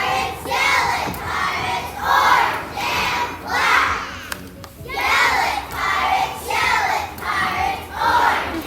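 A crowd of children shouting or chanting together in a steady rhythm, short loud phrases about once a second, with a brief pause about four and a half seconds in.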